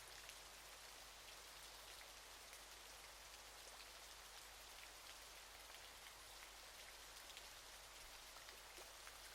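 Waterfall: a faint, steady rush of falling water with fine splashing and spatter of droplets.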